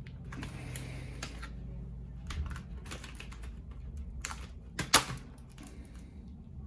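Sharp plastic clicks and taps of laptop parts being handled and pried apart, with the loudest snap about five seconds in.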